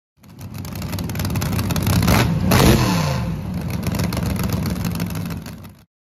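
Car engine that fades in and builds to its loudest about two and a half seconds in, then drops in pitch and fades out near the end.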